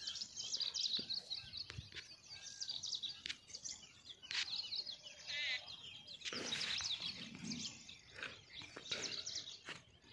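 Wild birds chirping and trilling, many short high calls overlapping one another, with a few faint clicks.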